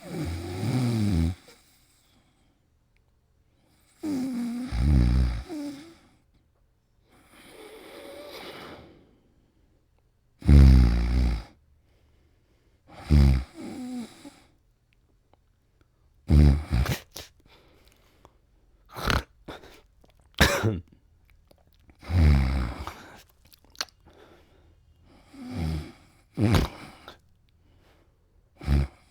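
A man snoring: low, rough snores every two to three seconds with near silence between them. Around the middle the snores come as a few short, sharp bursts.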